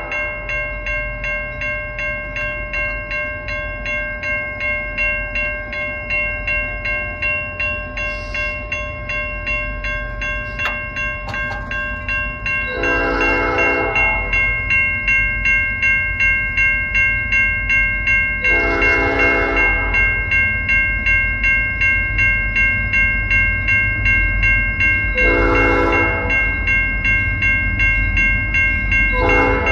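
Railroad crossing warning bell dinging steadily in a regular repeating rhythm while the crossing signals flash. An approaching Canadian National freight locomotive's horn blows the crossing signal over a low rumble: three blasts, the third shorter, with a fourth starting near the end.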